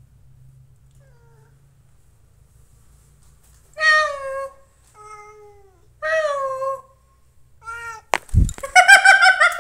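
A cat meowing: a few faint calls, then two loud meows that fall in pitch about four and six seconds in, a short one, a thump, and a longer, louder wavering meow at the end.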